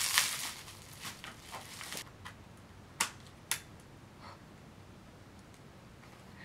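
Plastic packaging crinkling and rustling as a new camera is unwrapped, then two sharp clicks half a second apart from handling the camera and its lens.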